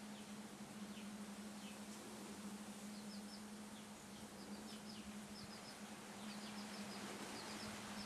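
Faint, high chirping in short runs of three or four quick notes, repeating every second or so, over a steady hiss and a low hum.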